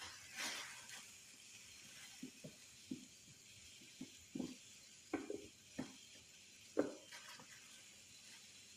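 A lemon being handled in the kitchen: about nine soft, irregular knocks and squishes spread over several seconds, after a faint hiss at the start.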